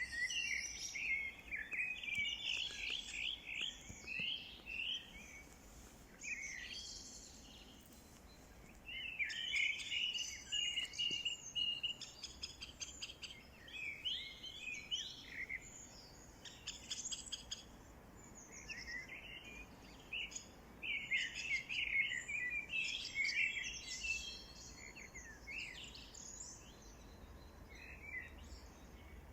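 Several songbirds chirping and singing in quick, overlapping bursts, with a few short lulls.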